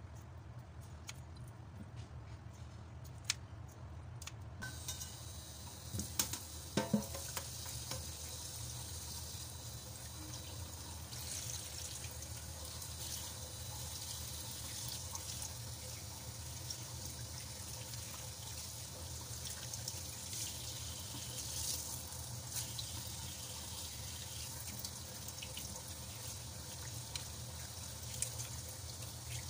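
Kitchen tap turned on about five seconds in: water runs steadily into a stainless steel sink and over a mesh strainer while sea cucumbers are rinsed by hand. Before the tap comes on there are a few sharp clicks, and there is a cluster of knocks just after it opens.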